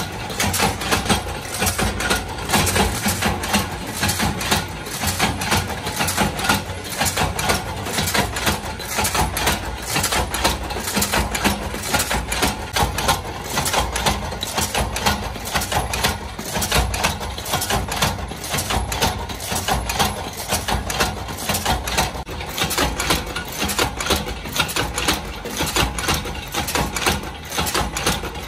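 Mechanical power press running, drawing steel discs into cup-shaped blanks for lamp-holder screw shells: a rapid, even string of metallic clanks over a steady motor drone.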